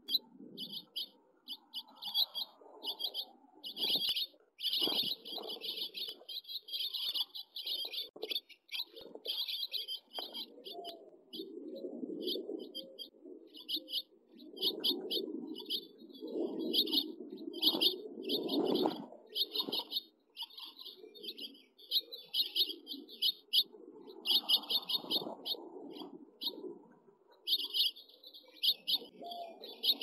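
House finch fledglings chirping at the nest in quick, continual series of short high chirps, with rustling and wing fluttering from the birds moving close by.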